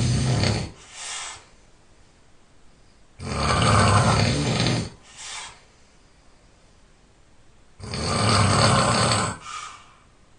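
A sleeping person snoring loudly. There are two long snores about four and a half seconds apart, each followed by a short, softer breath, and the end of another snore at the very start.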